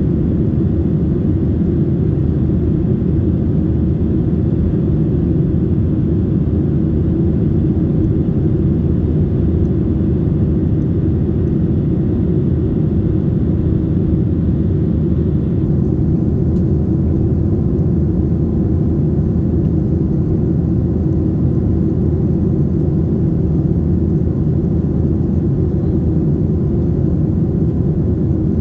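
Steady, even cabin noise inside a Boeing 737-600 in flight: the low noise of the CFM56-7B engines and the airflow over the fuselage, unchanging throughout.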